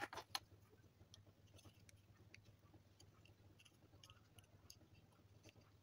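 Faint clicks and rubbing of small plastic parts as the LED torch's push-button switch board is fitted back into its plastic tail-cap holder, with a quick run of sharper clicks within the first half second; otherwise near silence.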